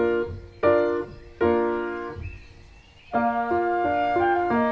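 Background piano music: two chords struck less than a second apart ring and fade into a short lull, then the piano comes back with a run of notes about three seconds in.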